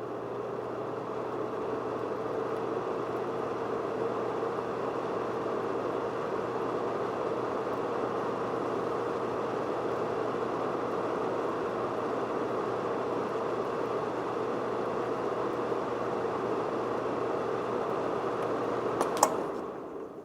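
Electric fan heater running with a steady blowing whir and a low electrical hum. About nineteen seconds in a switch clicks off, the hum stops, and the fan winds down.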